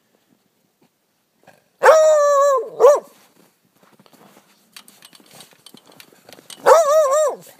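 Beagle baying on a rabbit's scent: a long drawn-out bay with a short one right after it about two seconds in, then another bay with a wavering pitch near the end. Faint scuffling in the snow between the bays.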